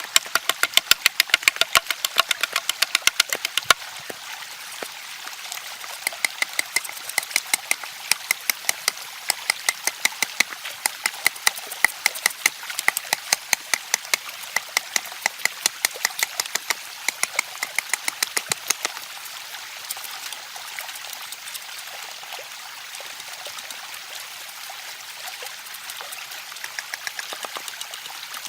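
A blade chopping into bamboo with quick, even strokes, about five sharp knocks a second, thinning out to occasional faint strikes after about nineteen seconds.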